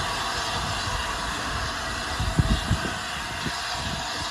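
Steady hiss of steam from a standing steam locomotive, with a few low thumps about two seconds in.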